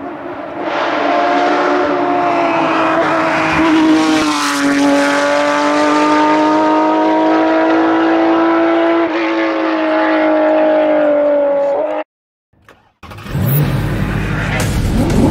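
Rally car engine held at high revs as the car comes up the tarmac stage, pitch wavering slightly with a dip about four seconds in. It cuts off abruptly after about twelve seconds, and after a second of silence a low rumble with a rising sweep begins.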